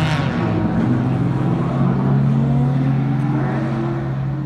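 Supercar engine running with a steady low drone; a noisy swell at the start fades, then the engine note rises from about one to three and a half seconds in, as under a rev.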